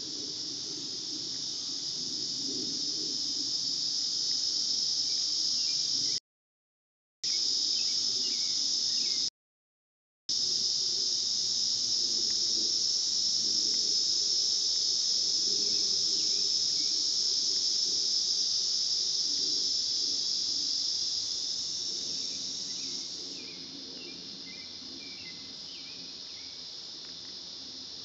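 Summer insect chorus in the forest: a dense, steady, high-pitched buzz. The sound cuts out completely twice for about a second, some six and nine seconds in, and the chorus grows quieter near the end.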